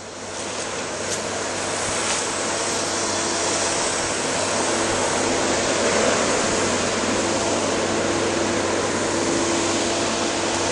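Diesel engine of a heavy logging machine running steadily under load. It grows louder over the first few seconds, then holds level.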